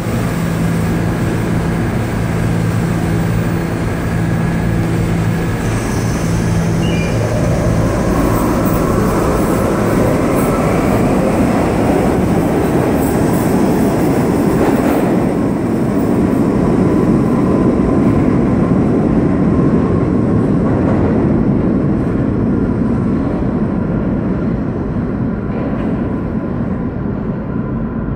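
R68A New York City subway train pulling out of a station. Its traction motors howl, the pitch rising as it accelerates, over the rumble of wheels on rail. The sound fades near the end as the train runs off into the tunnel.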